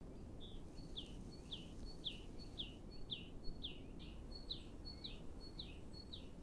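A small bird calling over and over, about two short down-slurred notes a second, over a low steady background noise.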